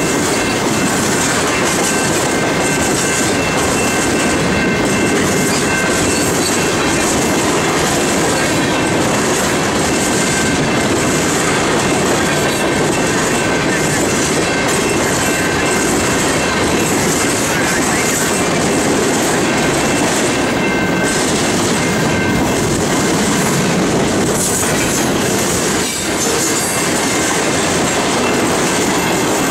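A loaded freight train's cars, steel-coil cars and then tank cars, rolling past close by: a loud, steady rumble and rattle of steel wheels on the rails, with faint high squealing tones held throughout.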